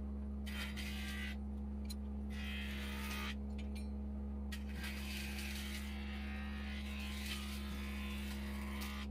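Electric wood lathe motor humming steadily, with stretches of scraping noise as a turning chisel cuts the spinning teak workpiece and is lifted off again.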